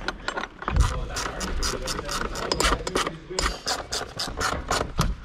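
Hand-worked ratchet mechanism clicking rapidly and evenly, about six clicks a second.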